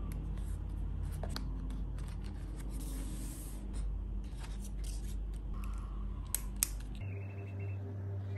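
A notebook being handled: small clicks and paper rustling as a plastic page clip is fixed onto a sketchbook page, with two sharp clicks about two-thirds of the way through, over a steady low hum.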